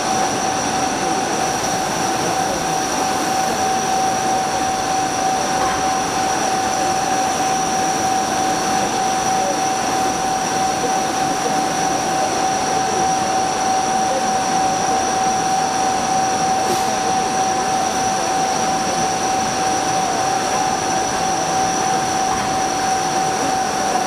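CNC machine cutting a metal RC helicopter rotor hub under flood coolant. It makes a steady whine at one unchanging pitch over the hiss and splash of coolant spray.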